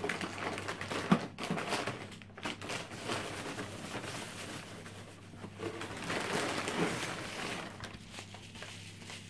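Packing material rustling and crinkling as it is pulled out of a parts box and handled, with a sharp knock about a second in.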